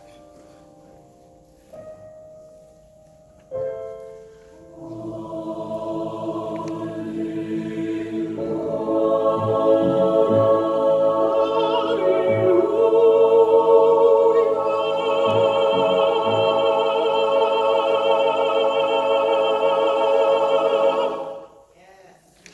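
A few soft piano notes, then a mixed choir comes in about four seconds in and swells into a long, loud final chord sung with vibrato. All the voices cut off together about a second before the end.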